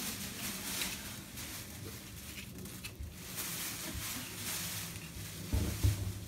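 Small knife scraping and cutting through pork skin and meat in repeated short strokes. A couple of low thuds come near the end.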